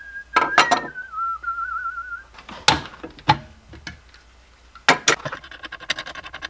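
A person whistling one wavering note, then knocks and clatter as a clamp is taken off and a spring clamp is set on a brass sheet on the drill press table, ending in a quick run of small clicks.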